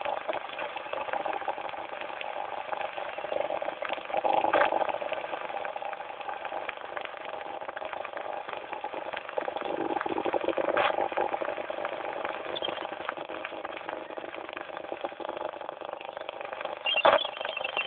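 Shortwave receiver tuned to the 7 MHz (40 m) band, putting out an unidentified signal: steady buzzing tones over static crackle, swelling twice and with a sharp click near the end. The uploader wonders whether the signal is SSTV or RTTY.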